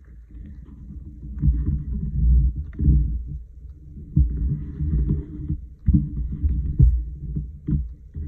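Low, irregular thumps and rubbing as an Elmer's glue stick is worked over paper and hands press the paper flat on the desk, with a faint scratchy rub of the stick on the paper in places.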